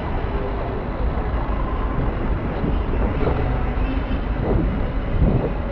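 Steady low rumble of wind and road noise on a chest-mounted phone's microphone while riding a bicycle along a city street, with street traffic mixed in.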